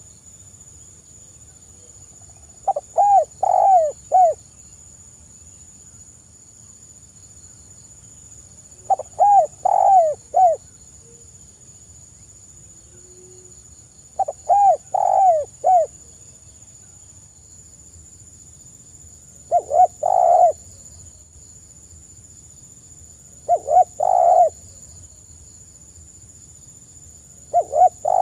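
Spotted dove cooing: six phrases, each of a few rolling, arching coo notes, repeated every four to six seconds with quiet between.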